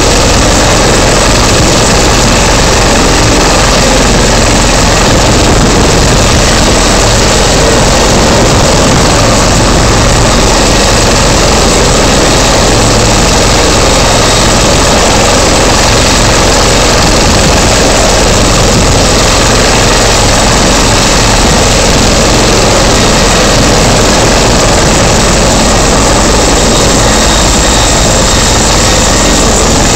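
Agusta-Bell 412 helicopter running on the ground with its rotors turning: a loud, steady mix of turbine whine and rotor noise that holds unchanged throughout.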